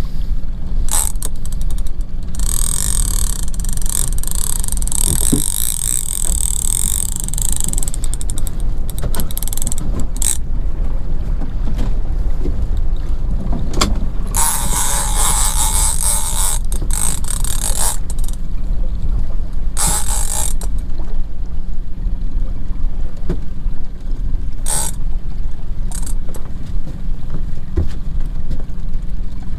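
Shimano Tiagra 30W lever-drag big-game reel whirring in several stretches during a fight with a bluefin tuna, the longest lasting about six seconds, over a steady low rumble.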